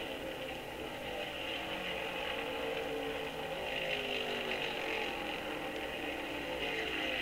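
1964 NASCAR stock cars' V8 engines at racing speed, several passing one after another, each engine's pitch falling as it goes by. The audio comes from an old phonograph record.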